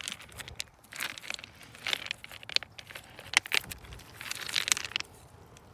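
A hand rummaging through loose railroad ballast stones, with irregular clicks and short scraping crunches as the rocks knock and grind against each other.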